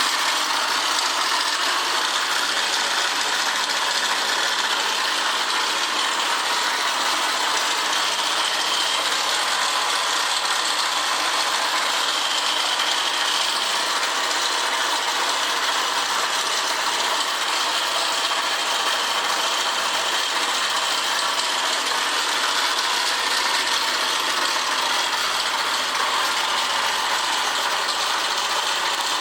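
Honda Press Cub 50 (AA01, PGM-FI) air-cooled four-stroke single-cylinder engine running steadily, with the abnormal mechanical engine noise that the seller lists as a fault.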